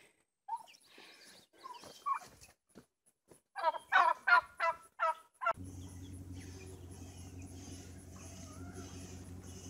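Farm poultry calling: a few short calls, then a loud rapid string of about seven calls in quick succession. A little past halfway a steady low engine hum starts abruptly and continues.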